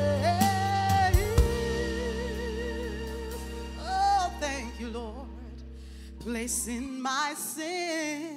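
A woman singing a slow gospel song into a microphone, holding notes with vibrato over a sustained instrumental backing. The low bass of the backing drops out about seven seconds in, leaving the voice more exposed.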